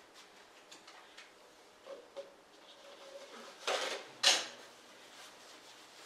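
Kitchen items being handled on a countertop: a few small clicks, a brief scrape, then one sharp clack of something hard set down or knocked.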